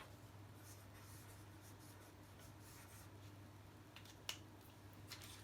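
Near silence with a low steady hum, faint scratching of a pen writing, and one sharp click a little past four seconds in.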